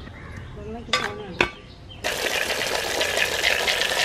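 Water pouring and splashing onto two giant freshwater prawns in a plastic tray. It starts suddenly about halfway through and keeps up steadily. Two sharp knocks come before it.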